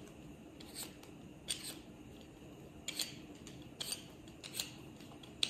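Potato being peeled by hand: short, crisp scraping strokes about once a second, some coming in quick pairs.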